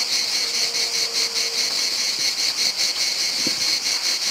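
Steady chorus of insects, a high, even chirring that pulses several times a second.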